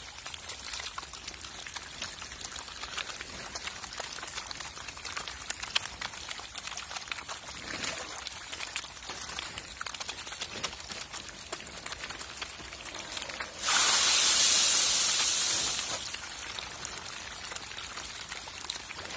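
A crowd of hybrid magur catfish feeding in shallow water, splashing and thrashing at the surface in a constant crackle of small splashes and clicks. About two-thirds of the way through, a loud rushing hiss lasts about two seconds, then drops away.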